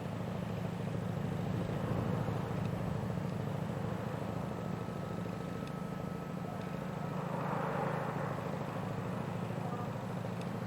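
Steady low engine drone from a Port of London Authority port tender under way. A faint thin whine comes in for a few seconds in the middle, and there is a brief swell of hiss a little past the middle.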